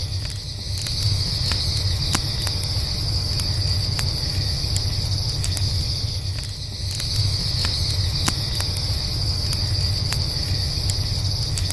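Crickets trilling steadily over a crackling campfire, with scattered sharp pops from the burning wood and a steady low rumble underneath.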